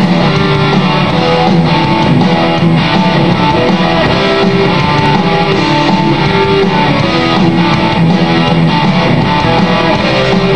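Loud rock music with electric guitar, starting abruptly.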